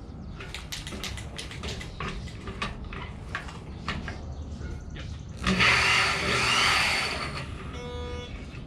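Metal clinks and taps as the sawmill blade's teeth are handled. About five and a half seconds in, a power grinder runs for about two seconds, touching up a dull carbide tooth on a 54-inch Frick sawmill blade.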